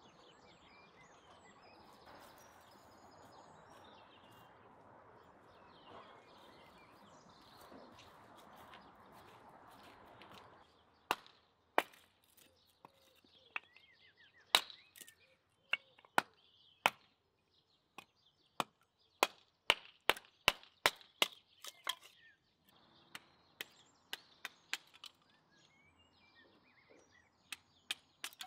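Hatchet splitting a small wooden block into kindling: a long series of sharp chopping strikes, some in quick succession, with lighter knocks near the end. The strikes begin about ten seconds in, after steady faint background noise.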